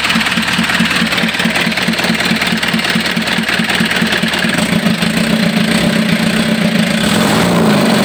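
Mitsubishi Canter's 4DR7 four-cylinder diesel engine idling with a steady, even beat, freshly overhauled and just started. Its pitch dips and rises once near the end.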